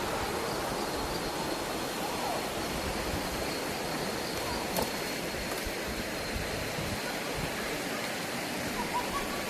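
Steady rush of water from a waterfall stream flowing over rocks, with a faint high steady tone over it for much of the time.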